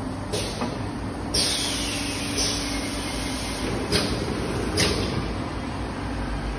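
Automatic meal box packing machine running with a steady hum, broken by about five short, sharp hisses roughly a second apart, typical of its pneumatic cylinders venting air as the manipulator cycles.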